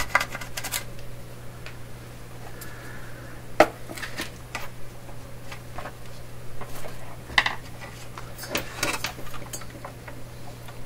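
Scattered light metallic clicks and clinks of small parts and tools being handled on a workbench, with a cluster of knocks near the end as the metal radio chassis is lifted and turned over. A steady low hum runs underneath.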